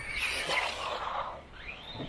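A 1/12-scale RC buggy's 5300kv brushless motor and tyres on the track: a hissing scrub of the tyres sliding over the surface for about a second and a half, then the motor's whine rising in pitch as it accelerates near the end.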